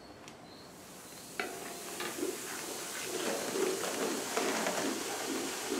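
Spoonfuls of flour dropped into hot ghee in a large aluminium karahi, sizzling as a wooden spoon stirs it into a paste: the start of roasting flour for Guyanese parsad. The sizzle starts about a second in, jumps sharply about half a second later and grows louder, with scraping strokes of the spoon throughout.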